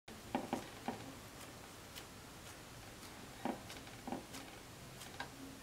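Soft, scattered taps and clicks of fingers pressing and folding dough against a tray, in two small clusters, over quiet room tone.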